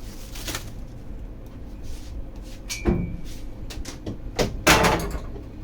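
A few separate knocks and clatters from objects being handled, the loudest a short noisy clatter just before the end, over a steady low hum.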